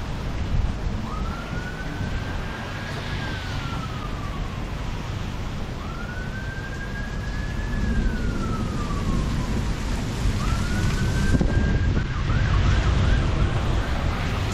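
Emergency vehicle siren sounding three slow rise-and-fall wails, then switching to a fast yelp near the end. Underneath is the steady noise of heavy rain, with a low rumble of thunder growing in the second half.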